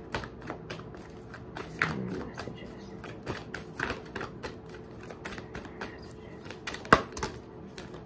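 A deck of oracle cards being shuffled by hand: a run of quick, irregular card flicks and slaps, with one sharper snap about seven seconds in.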